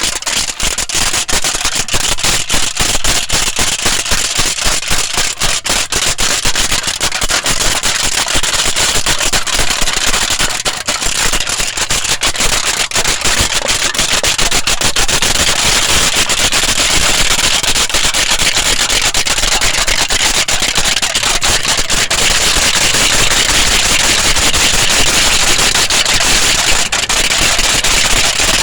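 Aluminium foil being crinkled close to the microphone: a loud, dense run of rapid crackles that grows more even and hiss-like about halfway through.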